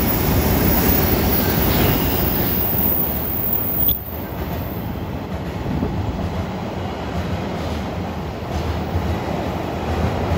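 JR Freight EF210 electric locomotive and a train of empty container flatcars with a Yo 8000 brake van passing close by: a steady rumble of wheels on the rails, easing slightly about four seconds in as the wagons roll past.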